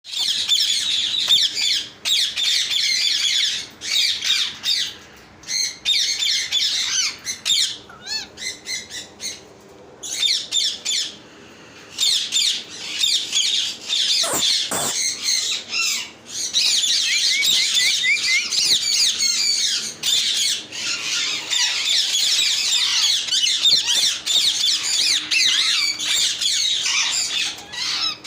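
Caged parrots squawking and chirping together, a dense chorus of many overlapping high calls with a few short lulls.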